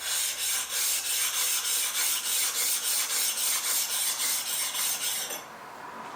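Steel plane blade rubbed in quick back-and-forth strokes on a sharpening stone, about three strokes a second, flattening a blade that has never been flattened. The rasping stops about five seconds in.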